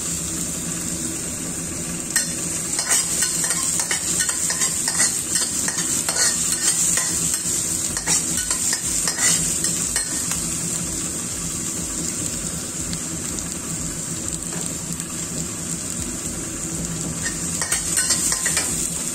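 Diced onion and chopped garlic sizzling in hot oil in a wok, with a metal wok spatula scraping and clicking against the pan as they are stirred. The scraping is busiest from about two to ten seconds in and again near the end.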